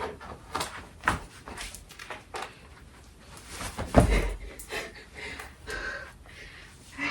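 Scattered knocks, scrapes and rustling of a person struggling to pull on a tight garment, with one loud thump about four seconds in.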